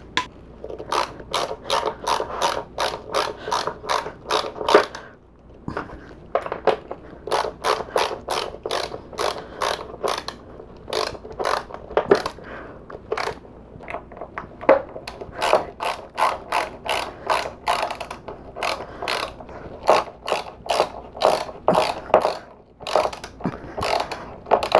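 Hand screwdriver driving screws into a particleboard panel, with a rapid clicking of about three strokes a second in runs, pausing twice.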